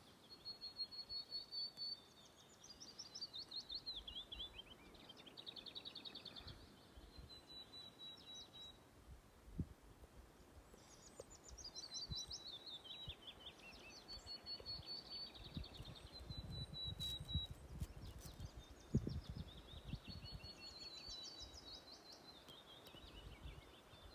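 A songbird singing outdoors, repeating a short phrase every two to three seconds, each a run of high notes falling in pitch. Low rumbles and one sharp thump come in the second half.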